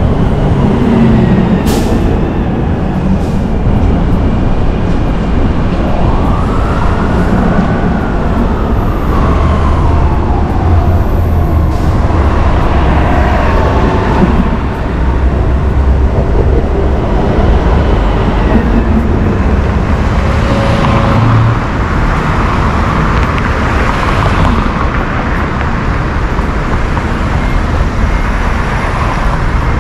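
Downtown street traffic heard from a moving bicycle: a steady rumble of passing cars and trucks, with wind on the microphone. A siren wails up and down once, about six seconds in.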